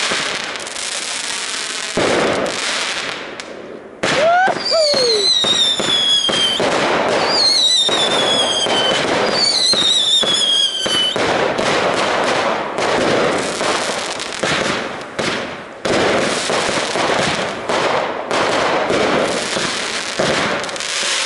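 Consumer firework cake firing in a fast series of pops and crackling bursts, with three falling whistles from whistling shots about four, seven and nine seconds in.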